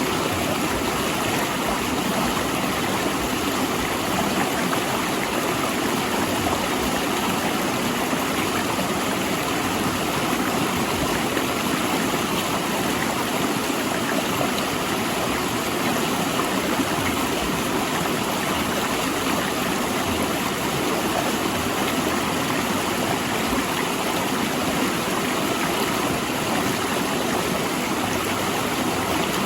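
Mountain river rushing and splashing over large rocks, a steady, even rush of water.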